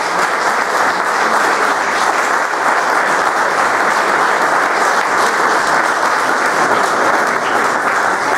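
Audience applauding steadily, a dense patter of many hands clapping for a prize winner coming up to collect her award.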